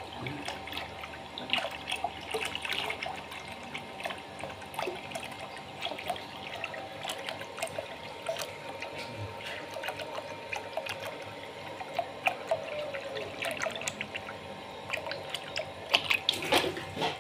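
Water trickling and splashing into a plastic basin holding live fish, with many small drips and splashes and a few louder splashes near the end.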